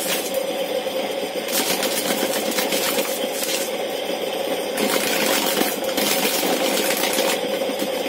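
Homemade corn sheller: a motor-driven spinning disc hums steadily while a dried corn cob is pressed against it, stripping off the kernels with harsh scraping and a rattle of loose kernels. The scraping drops out briefly a few times as the cob is lifted and turned.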